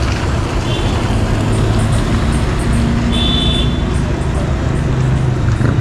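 Street traffic: vehicle engines running and passing in a steady rumble, with two short high chirps, one about a second in and a longer one around three seconds in.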